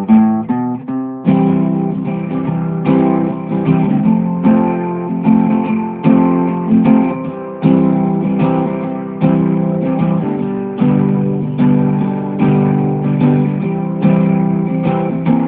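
Guitar music: a quick run of picked notes in the first second, then chords strummed at a steady pace, a little under one a second.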